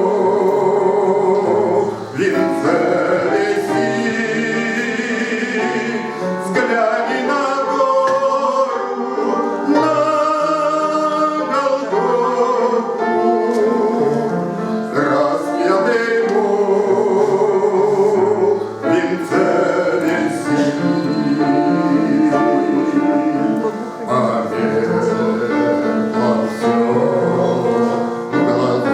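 A man singing a Christian hymn with vibrato over instrumental accompaniment.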